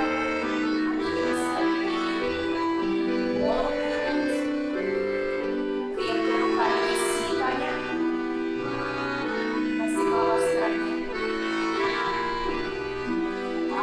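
Live accordion accompaniment playing a slow folk dance tune, with held chords over changing bass notes and a few sharp taps.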